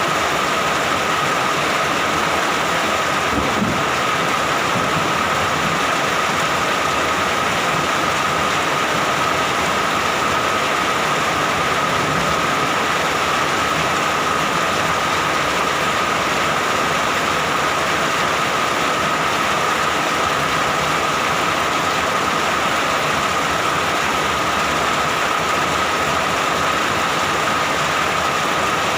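Steady rain falling, an even hiss, with a steady high tone running through it.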